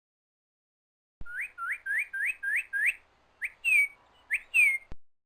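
A bird singing clear whistled notes: a quick run of six short rising whistles, then after a short pause a rising note and two longer falling whistles. It starts abruptly about a second in and cuts off suddenly near the end.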